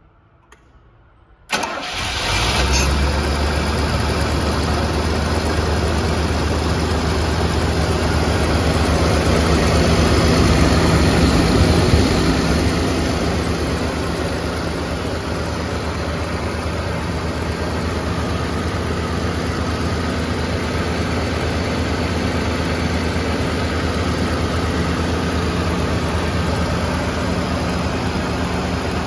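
Rolls-Royce Silver Shadow V8 cold-started: it catches abruptly about a second and a half in and settles into a steady idle. The idle swells a little around ten seconds in, then eases slightly lower and holds steady.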